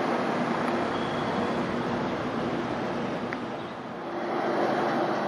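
Indian Railways passenger train of LHB coaches rolling past, a steady rumble and rush of wheels on the track. The sound dips briefly near the end and then swells again.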